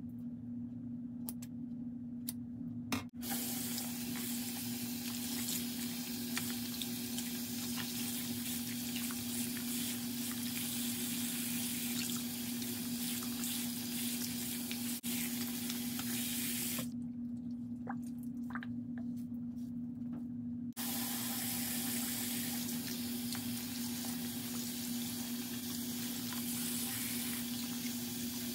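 Bathroom sink tap running, its water splashing over a doll's hair being rinsed in the basin. The water starts about three seconds in, breaks off for about four seconds past the middle, then runs again. A steady low hum lies under it throughout.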